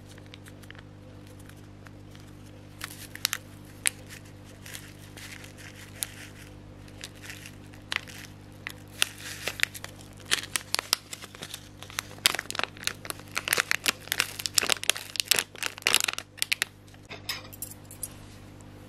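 Plastic seasoning sachets crinkling as they are squeezed and shaken out over cup noodles: irregular clicks and rustles that grow busy in the second half and thin out near the end, over a steady low hum.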